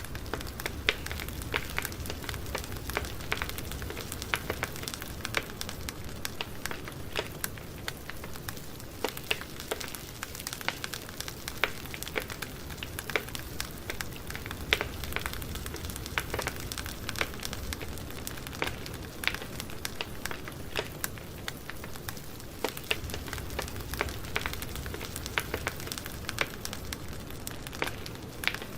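Campfire burning: wood crackling and popping in many irregular sharp snaps over a steady hiss and a low rumble of the flames.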